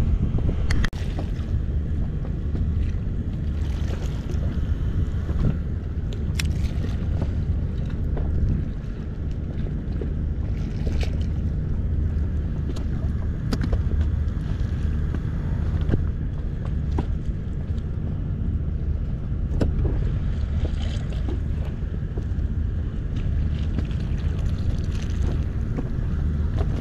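Small outboard motor on an inflatable boat running steadily at low speed, with wind on the microphone. A few short clicks and knocks come through now and then.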